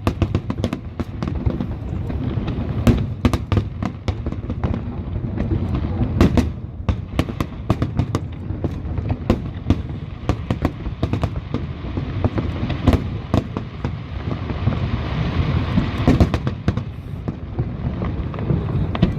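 Aerial fireworks exploding in quick, irregular succession: sharp bangs over a continuous rumble, with a denser spell of crackling about two-thirds of the way through.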